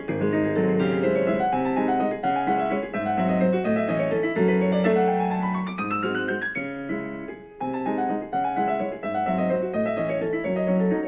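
Background piano music: repeating notes over a steady bass pattern, with a rising run of notes around the middle and a short drop-off before the pattern resumes.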